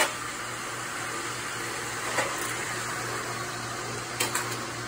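K'nex roller coaster running on its plastic track: a steady whirring hum, with a few light clicks and rattles from the cars about two seconds in and again near the end.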